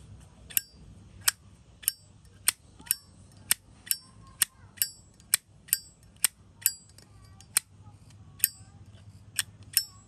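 Hinged metal lid of a flip-top petrol lighter being flicked open and snapped shut over and over: about seventeen sharp metallic clicks, each with a brief high ring, at roughly two a second, with a short pause about two-thirds of the way through.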